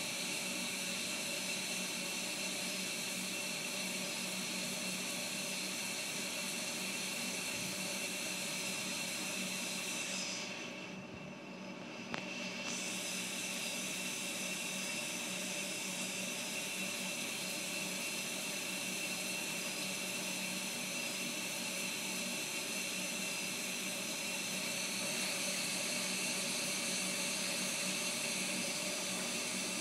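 Steady whirring hiss with a few faint steady hum tones underneath. The high end is briefly muffled about ten to twelve seconds in, with one small click near the end of that dip.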